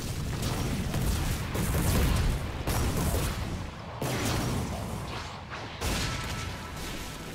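Explosion and impact sound effects from an animated fight: a dense, rumbling din of booms and blasts that cuts off and starts again several times.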